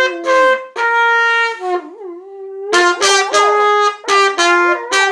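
A trumpet playing a run of short held notes while a dog howls along, its wavering howl sliding up and down in pitch around the trumpet's notes. About two seconds in the trumpet pauses briefly and the softer howl is heard on its own.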